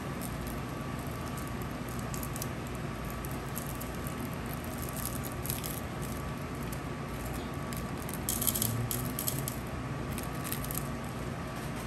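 Light scattered clicks and faint rattling, a small cluster about eight to nine seconds in, as plastic rhinestone storage boxes are handled, over a steady low hum with a faint steady tone.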